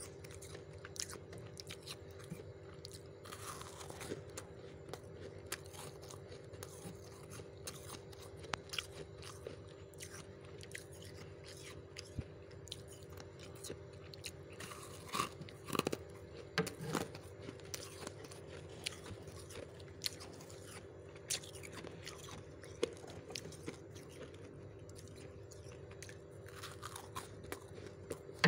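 Freezer frost crunching as it is bitten and chewed, in scattered crunches and clicks that come thickest about halfway through, over a steady low hum.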